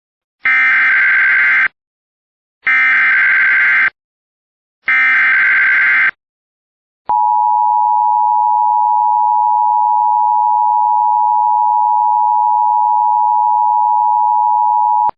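Emergency Alert System header: three short bursts of raspy digital data tones (the SAME header), then a steady EAS attention tone held for about eight seconds.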